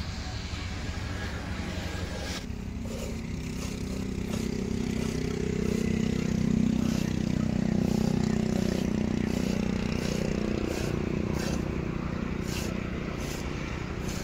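Camel being milked by hand into a steel pot: milk squirting into the metal pot in short, regular spurts, about two a second. Under it, a low engine drone swells to a peak midway and slowly fades.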